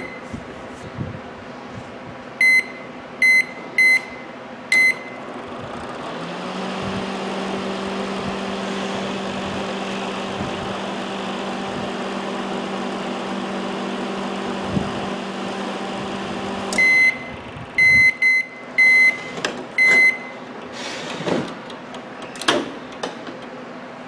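Whirlpool microwave oven: four short keypad beeps as a time is set, then about eleven seconds of steady running hum from its fan and turntable motor, ending in a row of beeps when the cycle finishes, and a couple of clicks near the end. It runs without heating, because the wire to the high-voltage transformer's primary is burned out.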